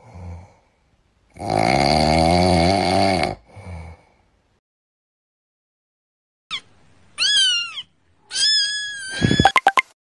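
Cat meowing: one long meow with a wavering pitch, then after a pause several shorter meows, some falling in pitch. A quick run of clicks comes near the end.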